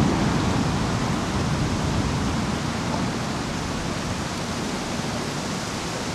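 Storm wind and rain in a steady rushing noise, with no thunder strokes, easing slightly over the few seconds.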